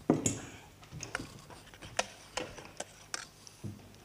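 A metal ladle clinking and tapping against a saucepan and china plates as butter sauce is spooned over the fish: a sharp knock right at the start, then about half a dozen lighter clicks.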